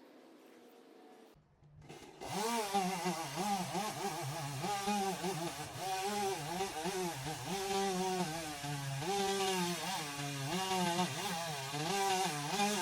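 Two-stroke chainsaw running hard, its engine pitch repeatedly dropping and rising again as the throttle and load change; it comes in about two seconds in.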